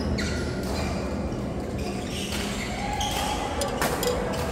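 Knocks of play on an indoor court over a steady low hum of the hall, the sharpest knock coming near the end.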